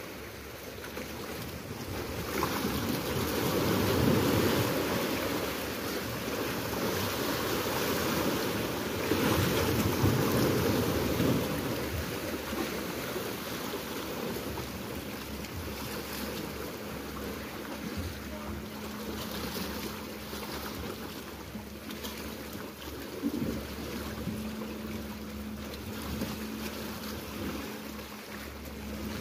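Sea waves washing and breaking against a rocky shore, with wind on the microphone. The surf swells louder about four seconds in and again about ten seconds in, and a steady low hum comes in about halfway through.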